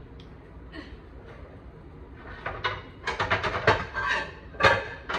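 Cookware clattering as a pan is pulled out of a kitchen cabinet: a quick run of rattling knocks about three seconds in, then a single loud knock near the end.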